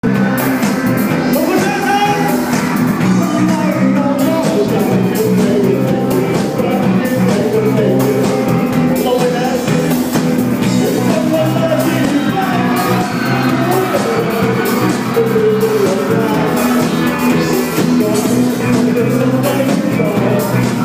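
Live band playing loud rock-style music: drum kit with cymbals, bass, and Rhodes and synth keyboards, with a voice singing over them.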